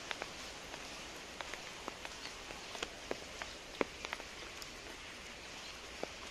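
Steady rain falling, a soft even hiss, with irregular sharp drops ticking close by.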